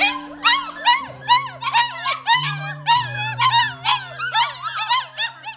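Goldendoodle puppies whining and yipping in quick, overlapping high cries, hungry and waiting to be fed, over background music with long held low notes.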